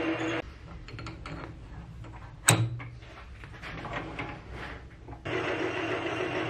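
Metal lathe running while a drill in the tailstock bores into aluminium stock, cutting off about half a second in. A quieter stretch of small clicks follows, with one sharp metallic clank about two and a half seconds in, then the lathe runs and drills again from about five seconds in.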